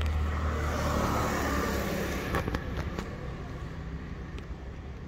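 A car driving past on the street. Its engine rumble and tyre noise swell, then fade away after about two seconds, with a few faint clicks.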